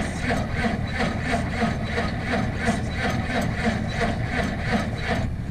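Diesel engine of a logging machine being cranked over by its starter in the cold, turning with an even pulse of about three to four beats a second without catching: a hard winter cold start on a jump-started battery.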